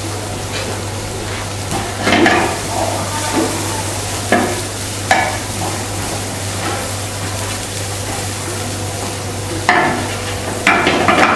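Finely chopped vegetables sizzling in oil in a steel frying pan on a gas burner, with the pan shaken and tossed. A few brief louder rattles and scrapes rise over the steady sizzle, several of them close together near the end.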